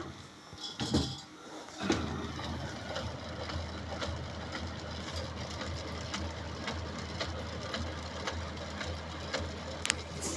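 Kyocera P3155 laser printer running, with repeated knocks from inside the mechanism over a steady low hum. The knocking starts about two seconds in and is the fault noise the printer is making.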